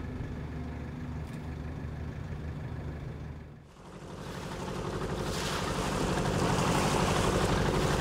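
Small wooden motorboat under way: its engine running with a fast, even beat, and water rushing and splashing past the hull. It fades in about halfway through and grows louder, after a quieter low hum.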